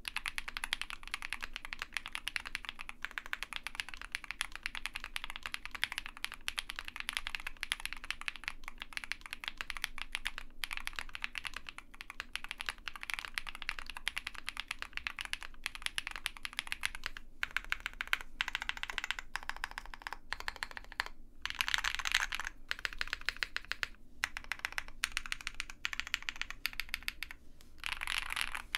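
Continuous fast typing on an OwLab Mr Suit TKL mechanical keyboard with Zaku switches, a POM plate and GMK ABS keycaps, all foam installed, which gives its muted, marble-like thock. The typing breaks off for a moment a few times near the end.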